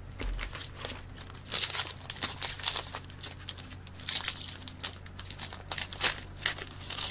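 Crinkling of a foil trading-card pack wrapper and rustling of hockey cards being handled and flipped through by hand, in irregular short bursts.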